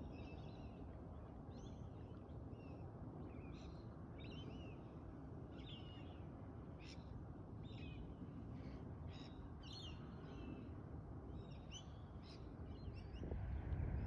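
Birds chirping, with many short, quick calls repeating throughout over a steady low background rumble. A louder low rumble builds near the end.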